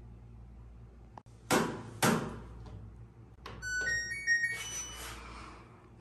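Two loud thumps a second and a half in, then the LG front-load washing machine's control panel beeping a short run of electronic tones at a few different pitches as the child-lock setting is toggled.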